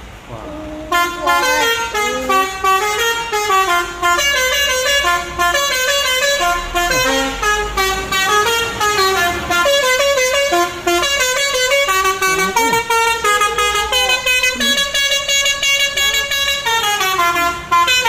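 Lorry's 'telolet' (basuri) musical air horn playing a tune, several horn tones sounding together and stepping from note to note. It starts about a second in and keeps going with only short breaks.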